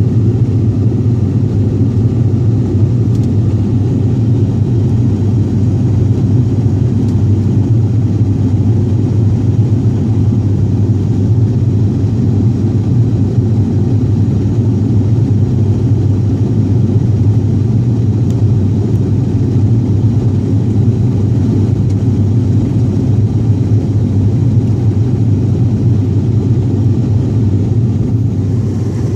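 Steady low drone of an ATR72-200's turboprop engines and propellers in flight, heard from inside the passenger cabin.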